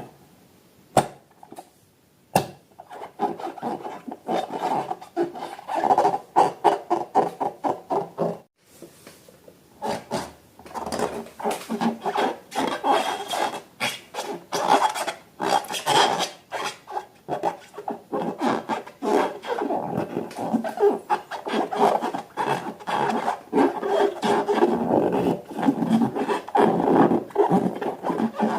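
Slime being mixed and worked by hand: a dense run of sticky clicks, smacks and squelches over a rubbing noise, pausing briefly about eight seconds in.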